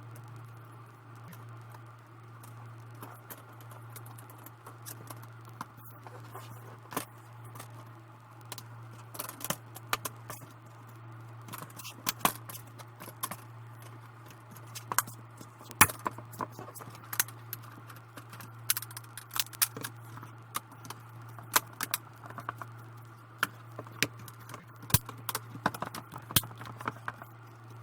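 Small plastic and metal parts of a laptop's screen assembly being handled: irregular light clicks and taps, coming more often from about a quarter of the way in, as the display cable is worked behind its plastic tabs. A steady low hum sits under it throughout.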